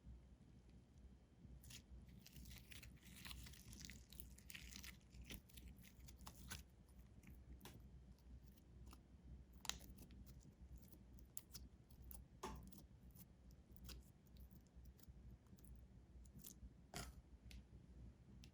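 Slime being squished and folded by hand: faint sticky clicks and crackles at irregular intervals, with one sharper pop about ten seconds in.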